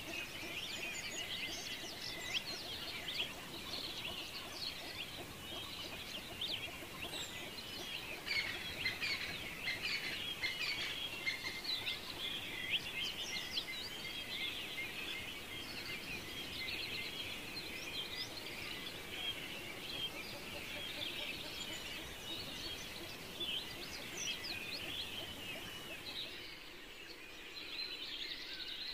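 Many small birds chirping together, a dense, steady chorus of short, high, overlapping calls.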